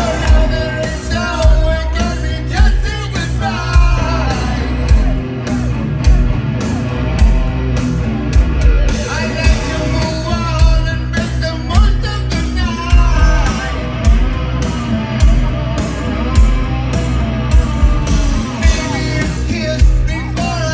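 Live heavy metal band at full volume: a male singer over electric guitar, bass, keyboards and a heavy drum beat landing about once a second, heard loud through a concert PA from within the crowd.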